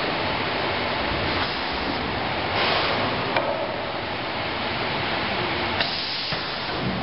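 Automated conveyor line for wooden window parts running with a steady mechanical noise, broken by two short hisses of released air, about two and a half seconds in and again near six seconds, each with a sharp click: pneumatic stops or pushers firing.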